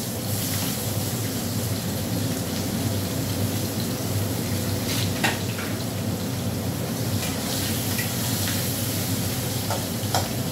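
Sliced onions sizzling steadily in hot oil in a kadai, with a few clicks of a metal spatula against the pan about halfway through and near the end as they are stirred.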